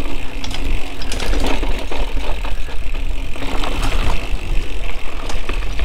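Mountain bike rolling along a dirt trail: tyre noise with many small clicks and rattles from the chain and frame, under a steady low wind rumble on the camera microphone.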